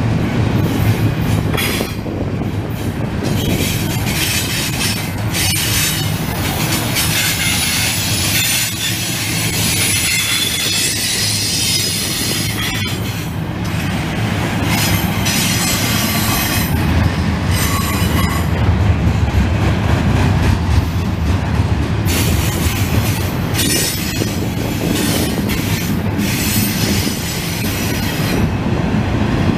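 Double-stack container well cars of a freight train rolling past: steady rumble and clatter of steel wheels on the rails, with high wheel squeal swelling and fading at times.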